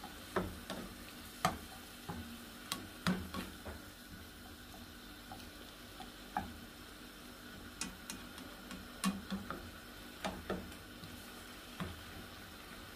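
A utensil stirring seafood in milk in a nonstick frying pan, with irregular taps and scrapes against the pan over a faint steady sizzle as the milk heats toward the boil.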